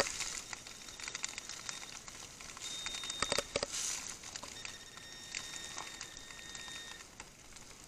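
Light rain pattering with scattered soft clicks, and twice a steady high electronic tone from a metal detector sounding on a target: a short one about three seconds in and a longer one of about two seconds near the middle.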